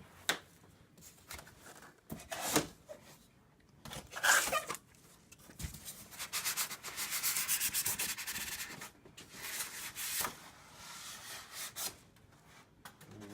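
Cardboard and foam packing rubbing and scraping as a TV box's contents are handled and pulled out, with a few short knocks and one longer rough rubbing stretch in the middle.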